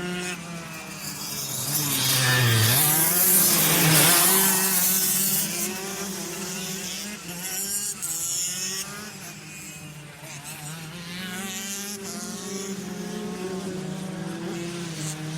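Several go-kart engines running as karts pass by. One goes by loudest about three to five seconds in, its pitch dropping as it passes, while others run on more quietly.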